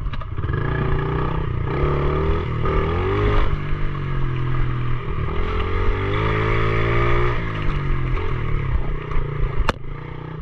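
A pit bike's small single-cylinder engine being ridden, its pitch rising and falling again and again as the throttle is opened and closed. A single sharp click sounds near the end.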